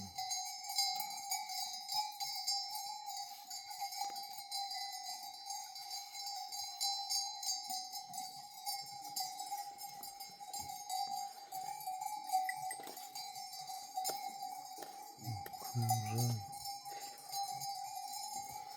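Livestock bells on a grazing herd of goats and sheep, ringing continuously. A short low bleat comes about sixteen seconds in.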